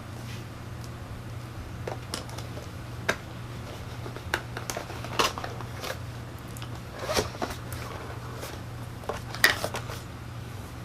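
A keyboard's packaging box being opened and handled by hand: scattered scrapes, taps and rustles, the sharpest about nine seconds in.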